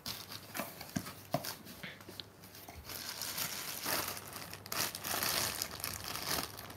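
Thin plastic bag wrapping crinkling and rustling as hands pull at it inside a cardboard box. There are scattered light taps at first and denser crinkling from about three seconds in.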